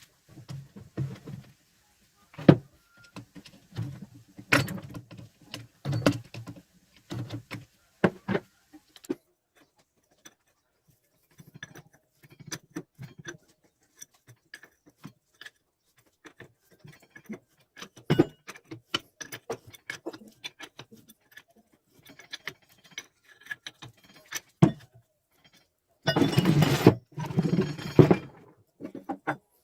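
Irregular metallic clinks, taps and knocks of gearbox parts being handled, with a louder spell of rattling and scraping near the end.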